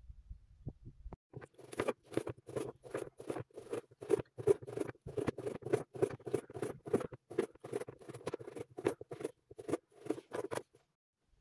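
Chef's knife slicing a dried sausage into rounds on a plastic cutting board, each stroke a short knock of the blade meeting the board. It goes as a steady run of quick knocks, about three a second, starting about a second in and stopping shortly before the end.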